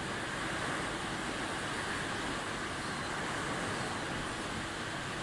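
Heavy tropical downpour driven by strong wind: a steady, even rush of rain and gusts.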